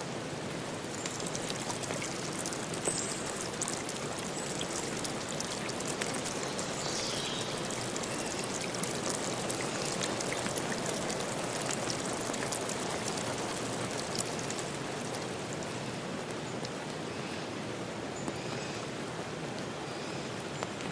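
Steady rush of water with many small drip-like ticks, and a few short high chirps in the first half.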